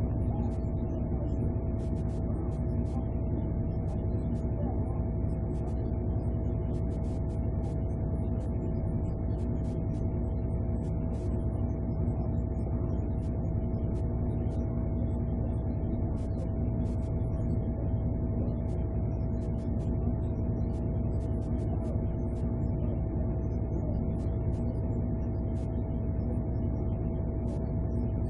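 A steady low rumble with a constant mid-pitched hum throughout, and faint scattered ticks.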